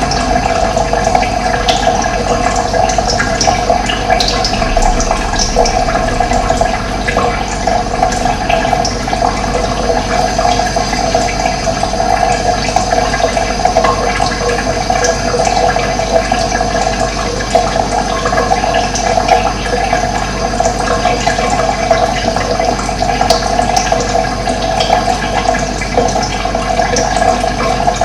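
Running water flowing steadily and continuously, with a few faint, short bird chirps above it.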